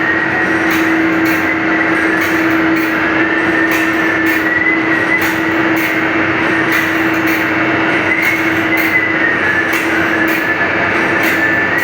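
Band saw blade sharpening machine running, its grinding wheel dressing the blade tooth by tooth in a regular stroke of about two a second over a steady motor hum and a wavering high whine.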